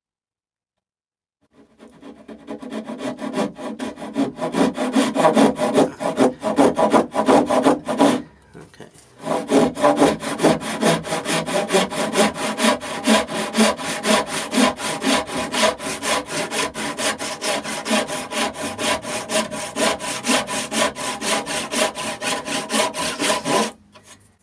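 Brass-backed hand backsaw cutting a kerf into a wooden rail, in steady back-and-forth rasping strokes. The sawing starts about a second and a half in, eases off briefly about a third of the way through, then runs on until just before the end.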